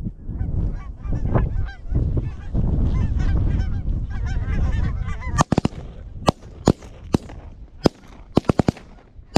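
A flock of Canada geese honking overhead, with heavy low wind noise on the microphone through the first half. From about halfway in come about ten sharp cracks in quick succession.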